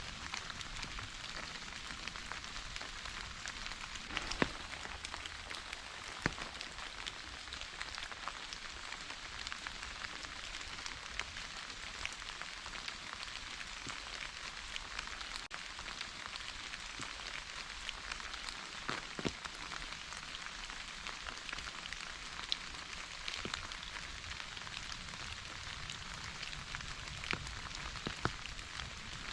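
Steady rain falling, an even hiss with many scattered drop ticks and a few louder single drops.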